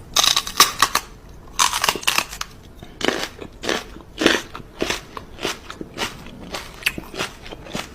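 Crisp crunching: quick, irregular crunches several times a second, loudest in the first couple of seconds.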